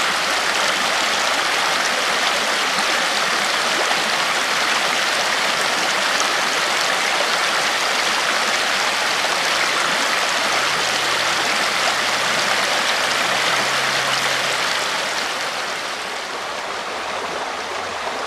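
Steady rush of flowing river water, easing a little near the end.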